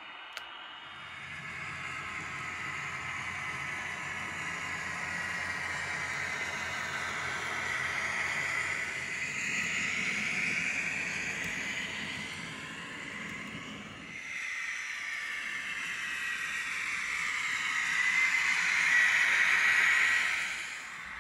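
N gauge model diesel multiple unit running on the track: a steady electric motor whine with wheel and rail noise. The sound dips at a shot change partway through, then swells to its loudest as the train passes close, falling away just before the end.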